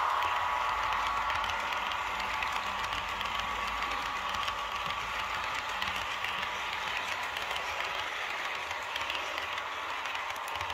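Model railway passenger coaches rolling past close by, their wheels clattering steadily on the track, slowly fading as the train moves on.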